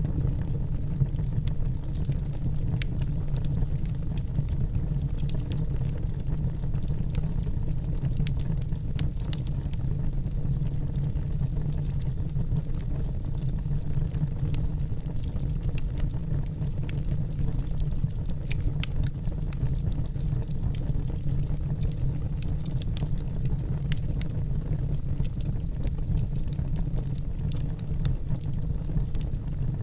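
Wood fire burning in a fire pit: irregular sharp crackles and pops scattered over a steady low rumble.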